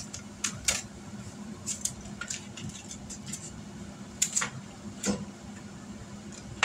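Barbecue sauce being brushed onto chicken legs in a foil pan: soft wet dabbing with scattered light clicks and crinkles against the foil, the sharpest about five seconds in, over a faint steady hum.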